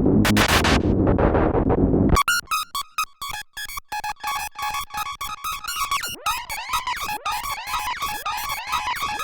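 Roland SE-02 analog monosynth playing: a dense, loud, bass-heavy sound for about two seconds cuts off suddenly into a fast run of short, high sequenced notes. From about six seconds in, each note falls quickly in pitch like a zap.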